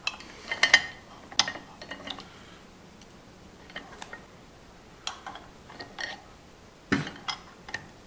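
Scattered metal clicks and clinks as a brass hose-end adapter with a 3D-printed plastic grip is handled and set in place on an arbor press. There are louder clicks about a second in and again near the end, as the press ram is brought down onto the brass.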